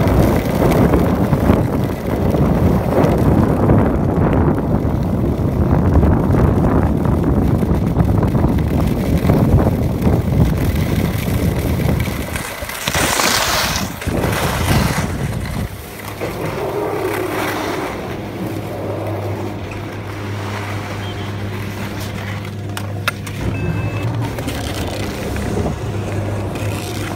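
Skis sliding over snow with wind buffeting the microphone for about the first twelve seconds, then a brief loud scraping hiss. After that a steady low machine hum takes over.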